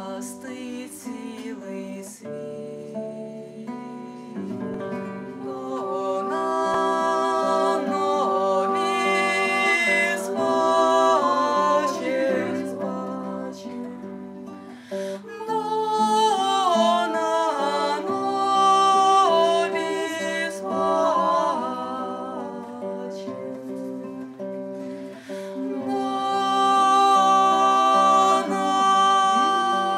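Acoustic guitar playing steady chords, with a wordless melody sung over it in phrases that rise and fall, each lasting several seconds.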